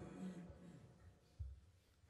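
Near silence: room tone, with the tail of a man's voice dying away at the start and a faint low thump about one and a half seconds in.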